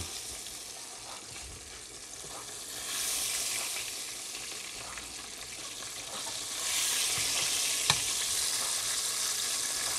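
Breaded bullhead catfish and largemouth bass fillets deep-frying in a pot of hot oil: a steady sizzling hiss that grows louder about three seconds in and again near seven seconds, with one light click near eight seconds.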